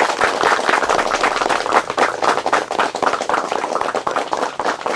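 A crowd clapping: dense, continuous applause.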